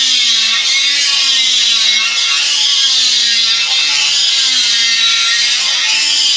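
Electric power tool working metal, with a steady loud hiss and a motor pitch that sags and recovers as it is loaded, over background music.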